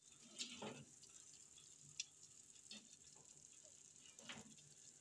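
Near silence with a few faint, irregular clicks and scrapes: a knife and a metal pizza pan knocking against an electric oven's wire rack as the pan is pulled out.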